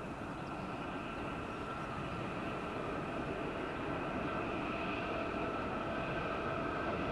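Distant Pacific National NR-class diesel-electric locomotives hauling a container train as it approaches. It is a low rumble with a steady high whine, growing slowly louder.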